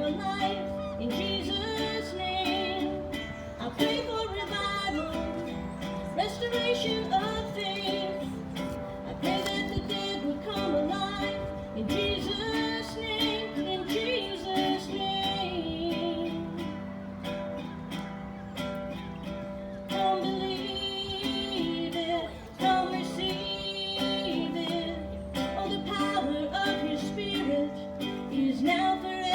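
Live gospel song: acoustic guitar strummed under singing.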